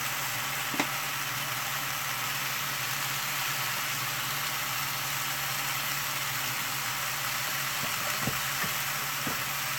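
Steady kitchen hiss with a low hum underneath, even throughout, and a single light tap about a second in and a couple of faint clicks near the end.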